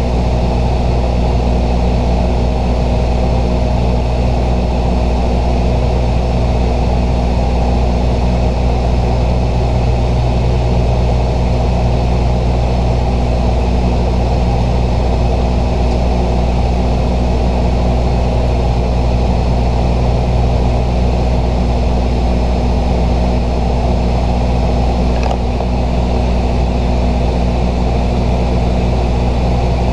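Steady in-flight drone of a Bombardier Dash 8-100's twin turboprop engines and propellers heard inside the cockpit: a constant low hum with several steady tones. There is a faint click about 25 seconds in.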